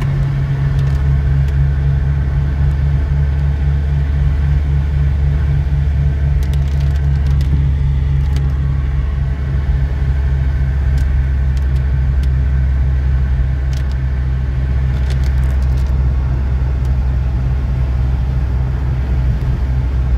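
Steady low drone of a vehicle's engine and road noise heard from inside the cab while driving, with a few faint ticks and rattles.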